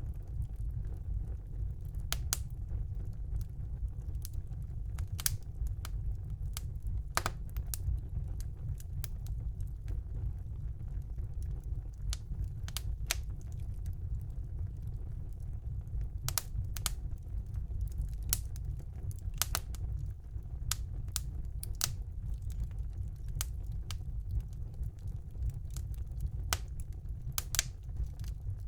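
Wood fire burning in a fireplace: a steady low rumble of the flames with irregular sharp crackles and pops from the burning logs.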